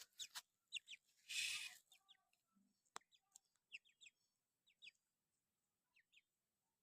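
Faint birds chirping: scattered short, quick chirps, with a brief rustle about a second and a half in and a single click about three seconds in.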